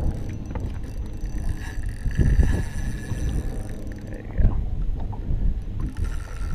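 Wind rumbling on the microphone aboard a small fishing boat, with a few knocks and a faint thin whine in the middle.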